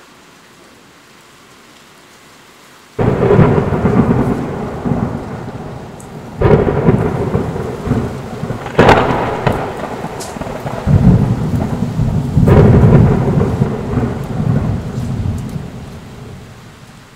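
Thunder over steady heavy rain: a sudden loud crack about three seconds in, then three more claps, each followed by long rolling rumbles that fade away near the end.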